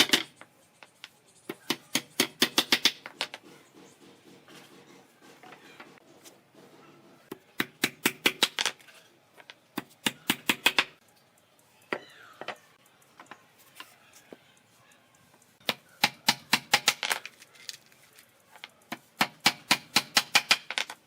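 Bursts of rapid, sharp tapping, about eight strikes a second, each burst lasting one to two seconds and coming five times with pauses between.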